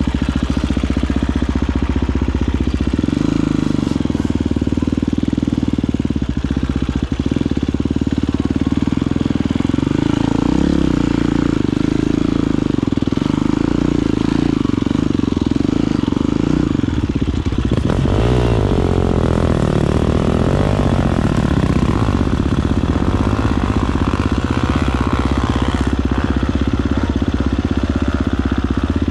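Husqvarna FE250 four-stroke single-cylinder enduro engine running steadily under the rider, with the revs rising and falling a few times a little past the middle.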